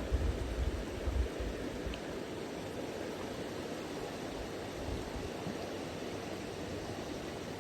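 Steady rush of river rapids, with a low rumble in the first second or so.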